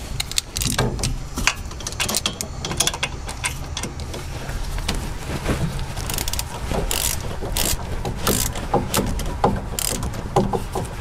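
Hand ratchet clicking in irregular runs of sharp metallic clicks as a rusty rear wheel bearing hub bolt is backed out a little at a time.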